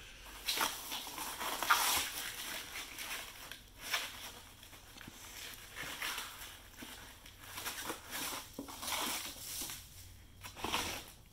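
Shredded paper packing rustling and crinkling as it is pulled and pushed aside by hand, in irregular bursts with short pauses between them.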